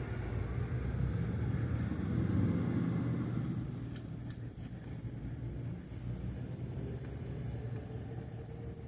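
Road traffic rumbling past, with one vehicle swelling loudest about two and a half seconds in and then fading. Faint rapid high ticking runs under it from about halfway.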